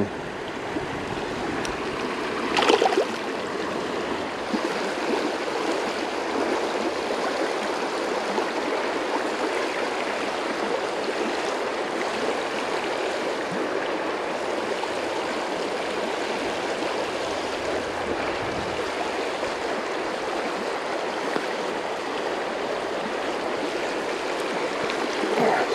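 Shallow creek water flowing and rippling over rocks in a steady rush. About two and a half seconds in there is one brief, louder sound.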